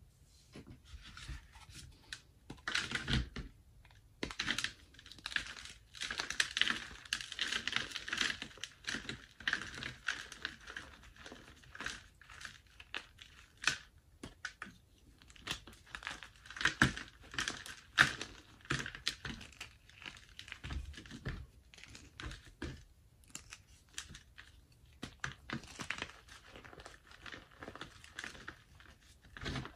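Block of pressed gym chalk squeezed and crumbled by hand: dry crunching and crackling in irregular bursts with short pauses, as the block breaks apart and the powder is rubbed between the fingers.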